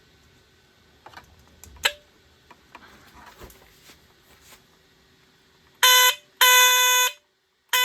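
BRK 769AC/DC smoke detector being plugged in and sounding its alarm: a few handling clicks and knocks, then, about six seconds in, three loud buzzing horn blasts, the first short. Each blast jumps briefly up in pitch as it cuts off. The horn sounds much better now.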